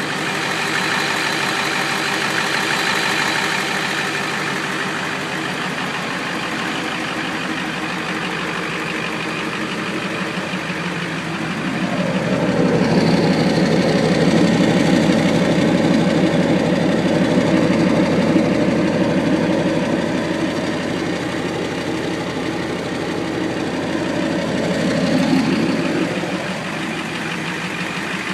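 Indirect-injection (IDI) diesel engine idling with a little tick running through it, which the owner is trying to pin down as either a lifter or an exhaust leak. The sound grows louder about twelve seconds in and drops back a couple of seconds before the end.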